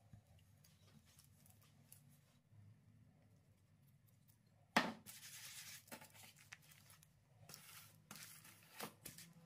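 Quiet food-preparation handling sounds: a sharp click about halfway through, followed by a couple of seconds of papery rustling, another short rustle and a click near the end.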